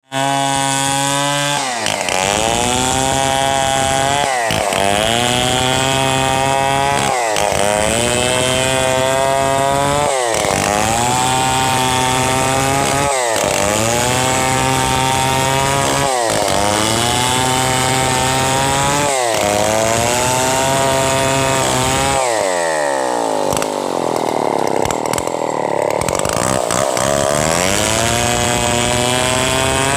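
Stihl 070, a large two-stroke chainsaw, running hard while cutting lengthwise through a log. Its engine pitch dips sharply and climbs back about every three seconds as the chain loads and frees in the cut.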